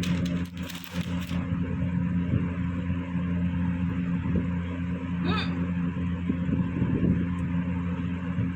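A person hiccups once, a short pitched 'hic' about five seconds in, over a steady low hum.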